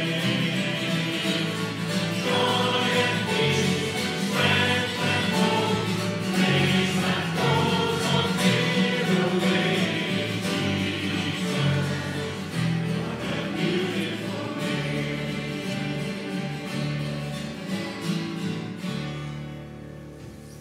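Music with a choir singing, fading out near the end.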